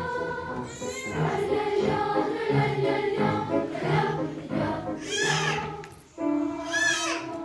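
Choir singing, with high voices sliding sharply up and down twice in the second half.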